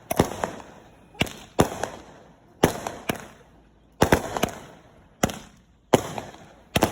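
A 200-gram, 16-shot consumer firework cake (Phantom Fireworks Emerald City) firing its shots in sequence: sharp bangs, often two in quick succession, about one a second, each trailing off before the next.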